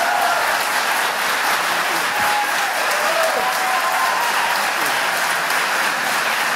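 Audience applauding, a steady dense clapping that lasts through the whole stretch.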